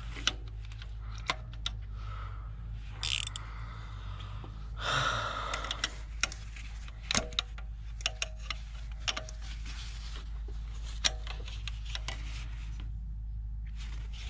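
Hand tools clicking and clinking against metal parts in a cramped engine bay, a series of short, irregular sharp clicks, with a brief rustling noise about five seconds in.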